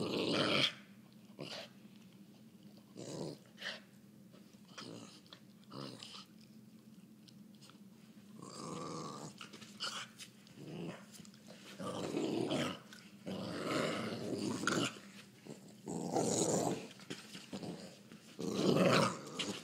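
A dog growling in play while biting and tugging at a rope toy. The growls come in irregular bursts with quiet gaps: short and faint at first, then longer and louder through the second half.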